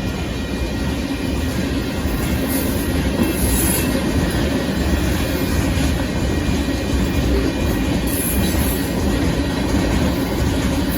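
Union Pacific freight train of sand hopper cars rolling past at close range: a steady loud rumble of wheels on the rails, with brief high-pitched wheel squeal twice.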